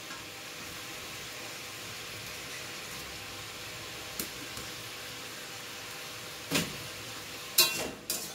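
Pumpkin pieces sizzling steadily in oil in a metal kadai as chopped onion goes in, then a spatula knocks and scrapes against the pan a few times near the end as stirring begins.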